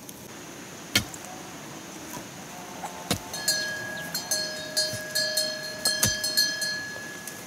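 A long rod jabbed down into earth at a post hole, giving three heavy thuds. In the second half a fast high clicking with a steady whistle-like tone runs alongside, from an unseen source.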